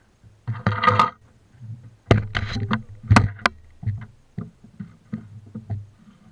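Irregular knocks, thumps and clicks of someone moving about on a small motorboat's deck close to the microphone, with rustling and buckle clicks from a life jacket being handled. A clattering burst comes about half a second in, and the sharpest knocks come between two and three and a half seconds in.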